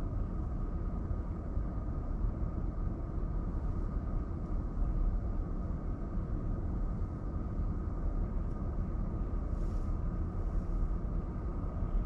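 A car driving: a steady low rumble of engine and road noise, with a faint steady high tone over it and a brief faint hiss about ten seconds in.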